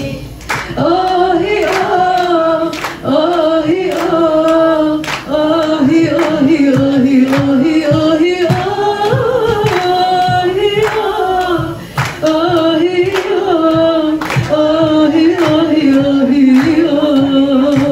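A woman singing an Arabic folk song into a handheld microphone, with the audience singing along and clapping in time.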